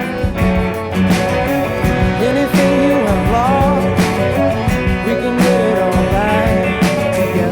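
Background music: a guitar-backed song with a singing voice and a steady beat.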